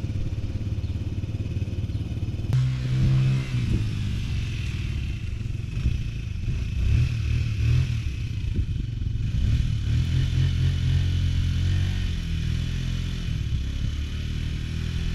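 Small youth ATV engine running and being revved unevenly, the revs rising and falling as it is ridden through deep snow. A louder burst of revving comes about two and a half seconds in.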